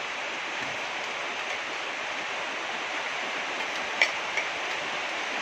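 Steady hiss of heavy rain. About four seconds in, a spoon clinks sharply against a stainless steel bowl, with a lighter clink just after.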